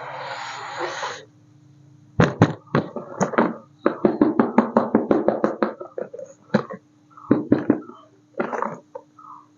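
Brief rustling for about the first second, then a long run of sharp clicks and knocks, some in quick succession, from the remote-control construction crane toy and its packaging being handled, over a faint steady hum.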